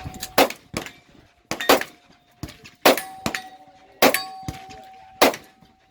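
Irregular gunfire on a shooting range, some shots in quick pairs, with steel targets clanging on hits and a steady ring hanging on between shots.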